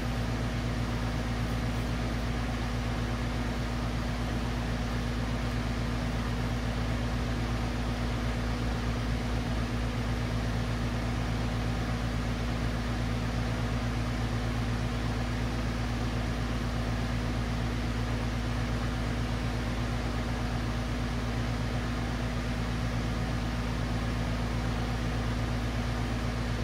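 A steady low hum over an even hiss, unchanging in pitch and level throughout.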